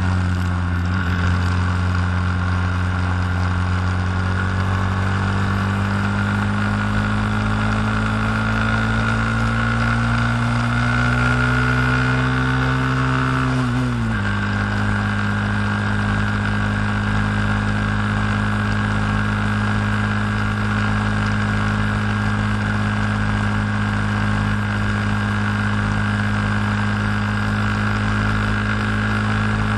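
Honda Grom's 125 cc single-cylinder engine running under way, heard from the moving bike over wind and road noise. Its note climbs slowly, drops suddenly about halfway through, then holds steady.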